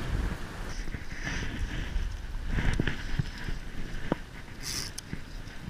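Wind buffeting the microphone as a low rumble, with scattered rustles, a couple of small clicks and a short high hiss near the end.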